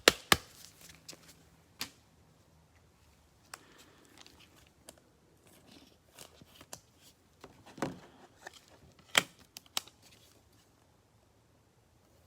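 Packaging of a Prizm football trading-card hanger box being handled and torn open: cardboard and wrapper rustling and tearing between scattered sharp snaps and clicks, the loudest right at the start and a cluster about eight to ten seconds in.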